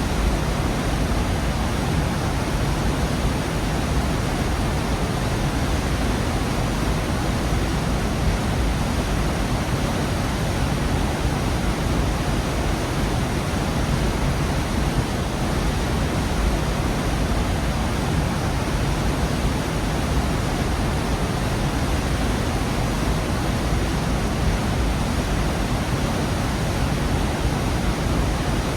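Waterfall in a gorge: a steady, dense rush of falling water, full and deep, with no breaks or changes.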